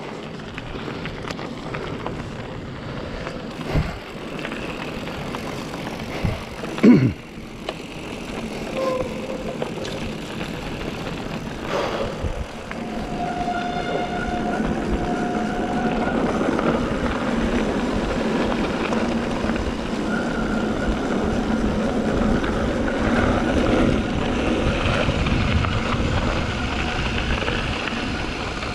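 Mountain bike descending a dirt trail: a steady rush of tyres rolling over dirt, wind and the bike rattling, growing louder as speed builds about halfway through, with a sharp knock about seven seconds in and brief steady whines later on.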